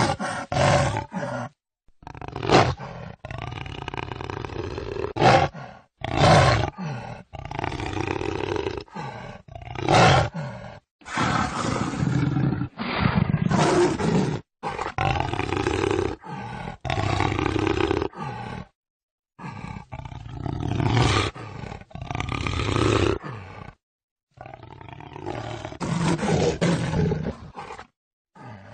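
Jaguar roars and growls, a long string of separate calls with hard edit cuts to silence between clips every few seconds.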